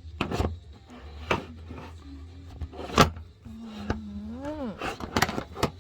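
A series of sharp knocks and clicks, like utensils or cookware being handled, over a steady low rumble. About three and a half seconds in, a short pitched sound with a voice-like quality rises and then falls.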